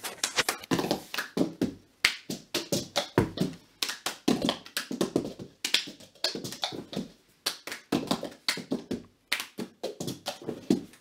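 Hand claps and cups knocked and slapped on a carpeted floor by two players in a rhythmic cup game, the pattern repeating in quick runs with brief pauses between them.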